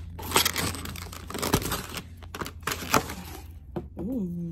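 Crinkling, rustling and sharp clicks of a foam takeout box and its foil lining being handled and opened, with a few louder snaps. Near the end a voice gives a short hum that bends up and down.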